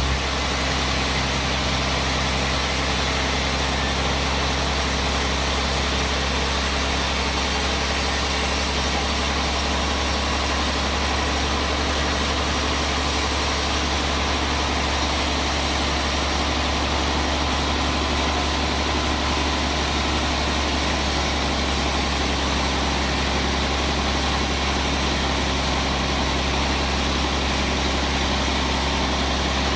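Sawmill bandsaw machinery running steadily, a constant low hum with steady overtones and no change in speed.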